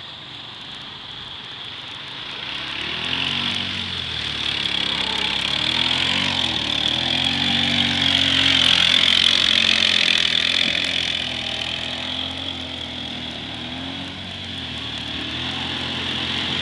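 ATV engine revving up and down as the four-wheeler ploughs through deep muddy water, with a steady hiss of splashing spray. It grows louder to a peak about halfway through as the quad passes closest, eases off, then builds again near the end.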